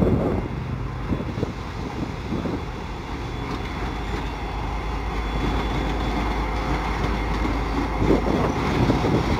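Two Norfolk Southern diesel locomotives running light, their engines giving a steady low rumble that slowly grows louder as they approach.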